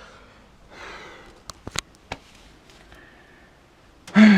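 Quiet room with a couple of soft breaths, then a few sharp clicks about one and a half to two seconds in. Near the end a man makes a short voiced sound that drops in pitch.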